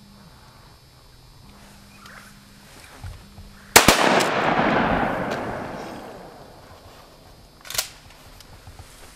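A shotgun shot about four seconds in, its report echoing and fading over a couple of seconds, then a second, shorter sharp crack near the end.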